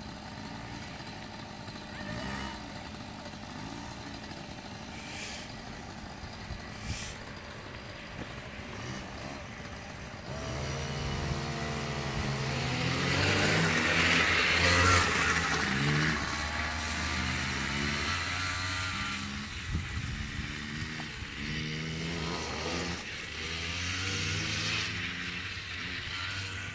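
Small children's dirt bikes revving as they ride, the engine pitch repeatedly rising and falling with the throttle. Faint at first, they come much closer about ten seconds in and are loudest shortly after.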